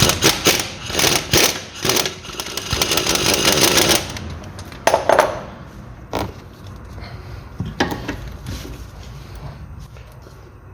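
Impact wrench hammering for about four seconds as it loosens a twelve-point bolt holding the driveshaft's inner CV joint to the gearbox flange. A few separate metallic clinks and knocks follow.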